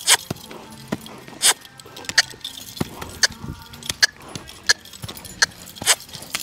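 Hoofbeats of a shod dancing horse: about a dozen sharp knocks, roughly two a second at an uneven pace, with light metallic jingling.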